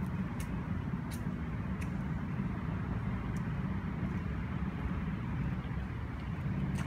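Steady low rumble of motor traffic with an engine hum in it, with a few faint ticks over the top.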